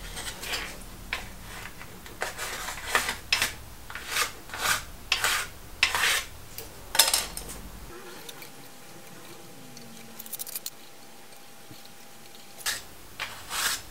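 Short scraping strokes of a wood offcut passed over the skewed blade of a brand-new Lie-Nielsen No. 51 shooting board plane, each pass taking a fine shaving with the blade as set at the factory. A quick run of about a dozen strokes, a quieter pause, then a couple more near the end.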